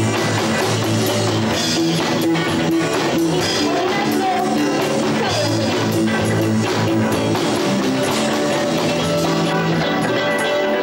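A live rock band playing: electric guitar over a drum kit, with steady drum and cymbal hits.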